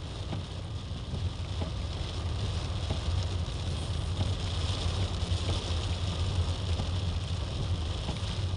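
Car driving on a wet road in rain, heard from within the moving car: a steady low rumble of engine and road with the hiss of tyres on wet tarmac.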